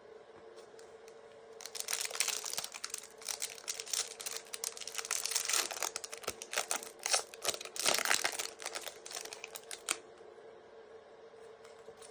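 Foil wrapper of a trading card pack crinkling and tearing as it is opened, a dense run of crackles from about two seconds in that stops near the end, over a faint steady hum.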